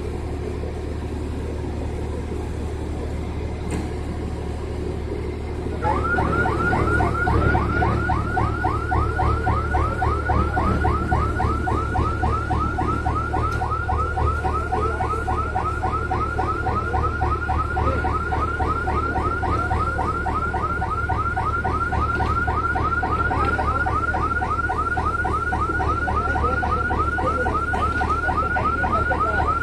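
An electronic warning alarm starts about six seconds in: a loud warbling tone that sweeps up and down about four times a second and keeps going. Under it runs the steady low drone of a running engine.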